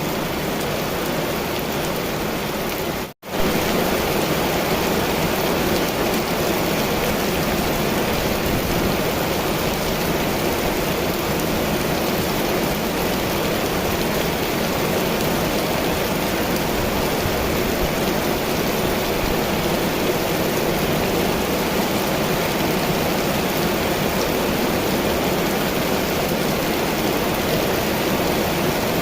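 Heavy rain falling steadily in an even hiss. It cuts out for an instant about three seconds in, then resumes slightly louder.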